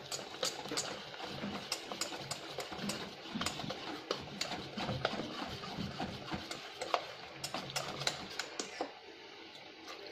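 Wire whisk beating thick gram-flour batter in a stainless steel bowl: a fast, irregular run of clicks and scrapes as the wires strike the bowl, easing off about nine seconds in.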